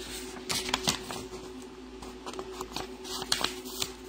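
A sheet of printer paper being handled and folded, its corner brought down to the side, rustling and crinkling in short irregular crackles.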